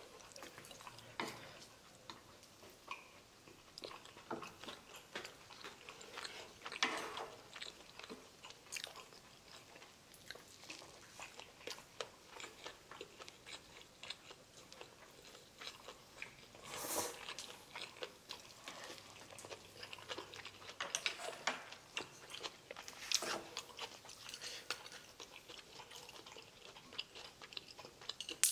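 Close-miked eating: chewing and biting with small crunches, and scattered light clicks of chopsticks and a spoon against the dishes.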